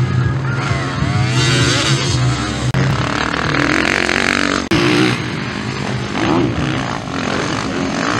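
Motocross bikes' engines revving up and down as they ride past on a dirt track. The sound changes abruptly twice, a little under 3 s and about 5 s in.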